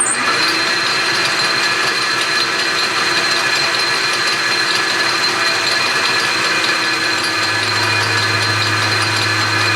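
South Bend 13 lathe running steadily, a machine whine with several held tones over a dense noise. A low hum joins about seven and a half seconds in, and the sound cuts off abruptly at the end.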